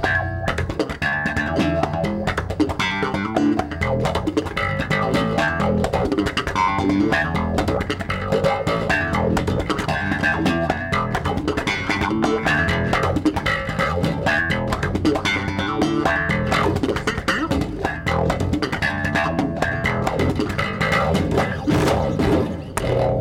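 Electric bass guitar played solo: a fast, busy run of plucked notes with sharp attacks, ending on a hard stroke near the end.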